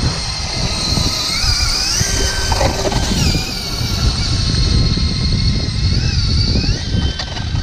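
Cordless drill driving an ice auger through lake ice. The motor whines steadily over the rumble of the auger cutting, its pitch rising and dipping a few times as the load changes.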